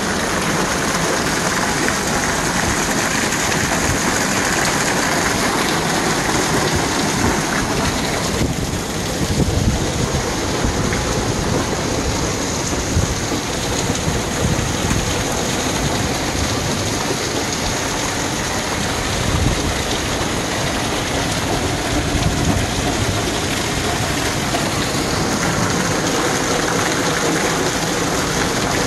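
Heavy rain falling steadily, with a few low rumbles, the strongest about nine seconds in and again near nineteen seconds.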